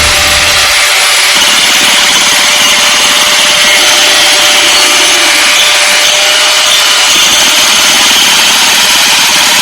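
Loud, steady machine noise: a harsh hiss with a thin high whine running through it, as from a power tool or cutter at work. A low rumble dies away within the first second.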